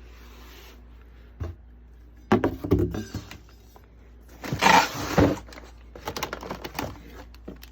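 Parts and packaging being handled during an unboxing: a sharp knock, a quick cluster of knocks, and a louder rustle of packaging near the middle, followed by a few light clicks.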